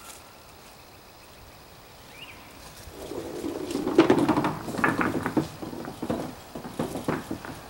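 A small composite bowling ball rolling on wooden boards: a low rumble builds about three seconds in and peaks around four seconds, followed by a run of clattering knocks.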